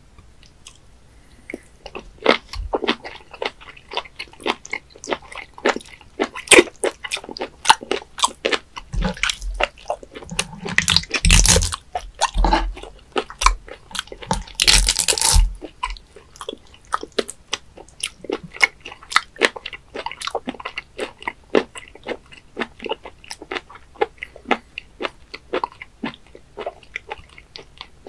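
Raw webfoot octopus handled with bare fingers on a wooden cutting board: a dense run of wet, sticky clicks and squelches, with two louder squishing stretches in the middle as the pieces are squeezed and pressed against the board.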